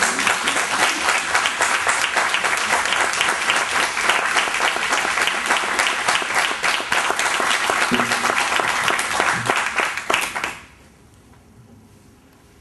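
Audience applause: dense, steady hand clapping that stops about ten and a half seconds in.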